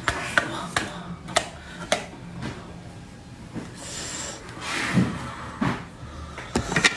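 Sharp clicks and knocks of a large sea snail shell being handled to work the meat out, irregular taps with a brief scraping hiss a little past the middle.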